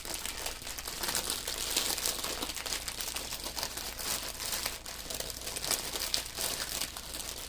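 Thin plastic crinkling steadily as it is handled, a dense crackle of small ticks.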